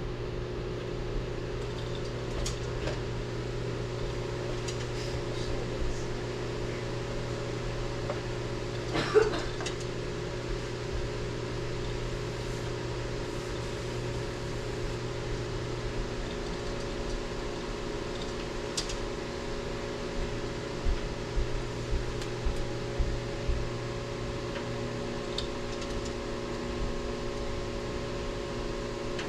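Pellet stove's fans running with a steady hum, broken by a sharp click about nine seconds in and a run of lighter clicks near the end.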